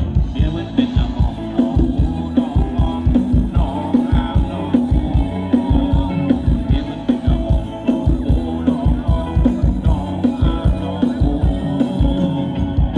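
A live band playing upbeat Thai ramwong dance music, with a steady, fast drum beat.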